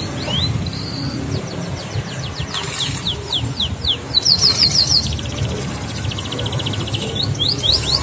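A domestic canary in full song: runs of quick falling whistled notes, a fast bright trill about halfway through, then a buzzy rattle and more whistled notes near the end. The bird is vigorous ('gacor') again, a sign it has recovered from bumblefoot.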